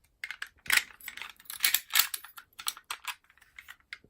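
Curtain pick and tension tool working in an ERA Fortress five-lever mortice lock: irregular, rapid metallic clicks and scrapes as the levers are moved.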